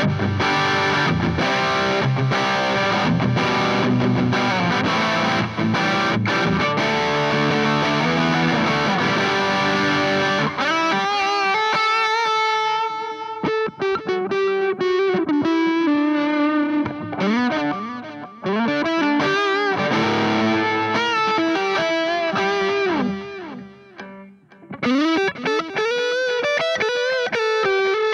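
Sterling by Music Man Silo3 electric guitar fitted with DiMarzio Chopper and Transition pickups, played through distortion. It starts with dense chordal riffing for about the first ten seconds, then switches to single-note lead lines with string bends and vibrato. The playing thins out briefly a few seconds before the end, then comes back in.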